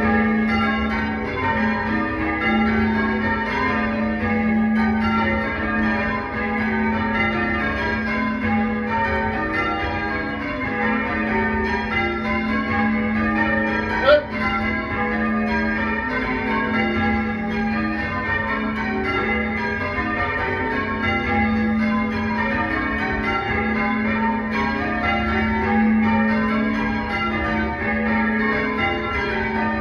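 Church bells rung in changes, the bells striking one after another in quick, even rows that repeat throughout. One brief sharp click sounds about halfway through.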